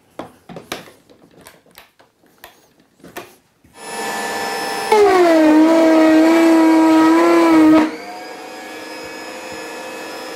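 Router in a router table running up, then dropping in pitch under load for about three seconds as the bit cuts a narrow slot through a small wooden block pushed along the fence. It then runs freely again at a steady, lower level. Before it starts there are a few light knocks from the wood being set in place.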